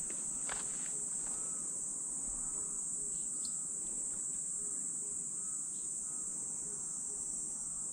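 Insects chirring steadily at a high pitch, an even continuous drone, with a faint click about half a second in.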